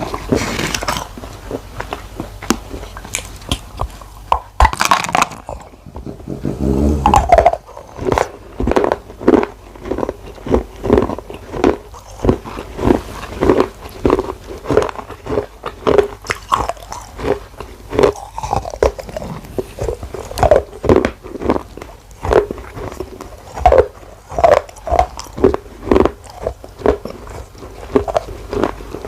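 Close-miked biting and chewing of water-soaked red clay from a small clay gullak: a few louder bites early on, then steady rhythmic chewing of the soft, wet clay.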